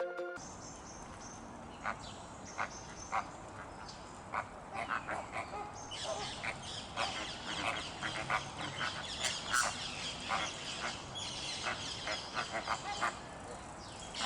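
A flock of flamingos calling, many short honking calls over one another. The calls are scattered at first and grow much denser about six seconds in, then thin out again near the end.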